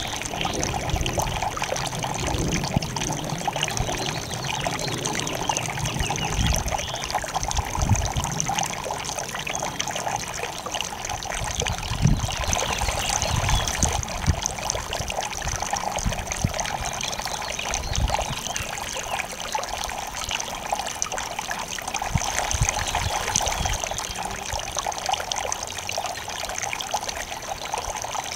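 Garden fountain water trickling steadily over rocks into a terracotta basin, with occasional low rumbles underneath.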